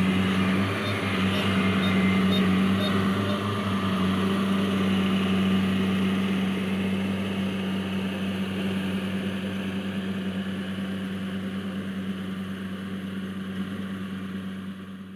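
Kubota AR52 combine harvester's diesel engine running steadily with a constant drone, gradually growing fainter over the last several seconds.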